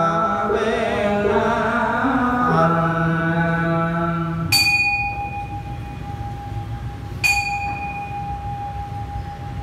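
Group Buddhist chanting sung on held notes, which stops about halfway; then a bell is struck twice, a few seconds apart, each stroke ringing on with a steady tone.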